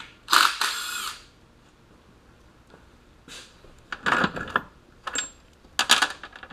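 Metal tools and loose engine parts clattering and clinking: a short rattling burst about half a second in, then several sharp metallic clanks near the end.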